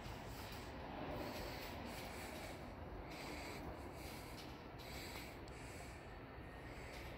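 Faint footsteps and soft rubbing from someone walking on a hard tiled floor, about one step a second, over a steady low background hum of a large, quiet indoor space.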